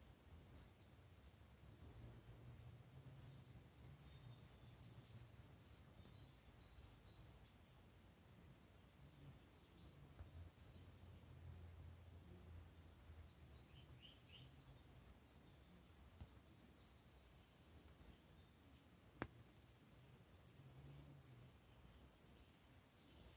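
Near silence: faint room tone with a low hum and brief, faint high chirps and ticks here and there.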